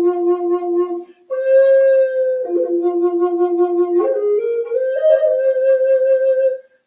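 Native American flute played solo: a slow melody of long held notes that step down and up in pitch, with a short break for breath about a second in and another near the end.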